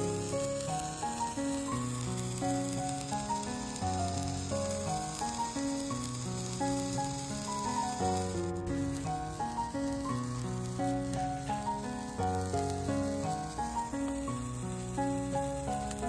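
Background music: a melody of distinct held notes over a low bass line, with a steady high hiss underneath.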